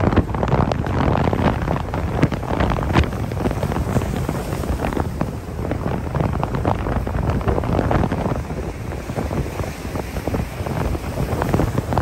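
Gale-force wind buffeting the microphone over heavy surf breaking and washing across the rocks of a breakwater, in uneven gusts.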